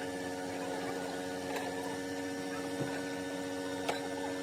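A steady, even hum, with sharp clicks about a second and a half and about four seconds in.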